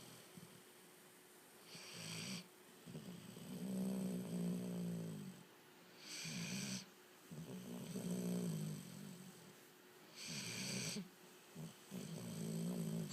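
A Weimaraner dog snoring in its sleep: low snores alternating with short airy hissing breaths, repeating about every four seconds.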